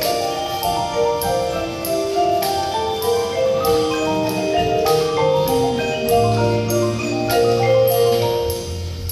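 Band music: sustained melodic notes with mallet percussion over a steady beat of sharp strokes about twice a second, with a low bass line coming in about six seconds in.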